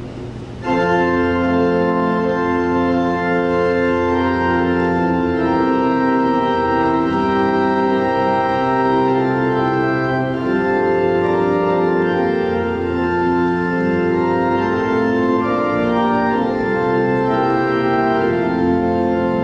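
Church organ playing, coming in suddenly under a second in with full sustained chords that change every second or so.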